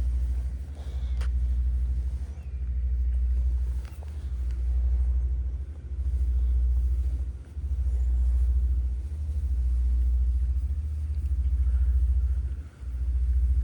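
Orange-and-white cat purring close to the microphone: a low fluttering rumble that swells and fades with each breath, about every one and a half to two seconds.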